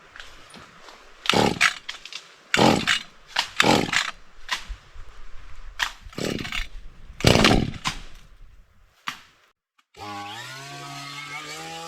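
About eight loud, noisy, irregularly spaced strokes, each under half a second. Then, after a sudden cut near the end, a small engine, likely the metal-bladed weed eater, running steadily at a fairly high, slightly wavering pitch.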